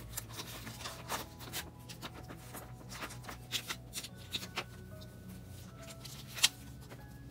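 Photocards and plastic binder sleeves being handled: a scattered string of soft rustles and light clicks, with one sharper click about six seconds in.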